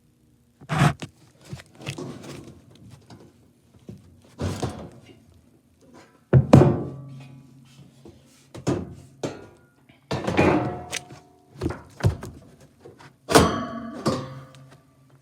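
Sheet-metal gas furnace parts being handled and knocked about: a string of thunks and clanks a second or two apart, several leaving a short metallic ring. The loudest hit comes about six and a half seconds in.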